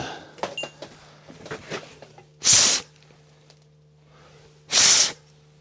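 Two short, loud hissing sprays from an aerosol can, about two seconds apart, cleaning a part of the trike's wheel. A few light clicks and knocks of handling come before them.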